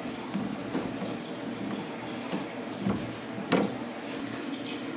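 A few light metallic clicks from a hand tool being turned in a steering-shaft coupler, over a steady background hum.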